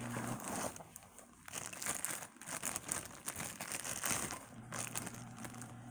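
Handling noise from a ratcheting screwdriver and bit set being picked up and turned in the hands: irregular crinkling rustles and small clicks.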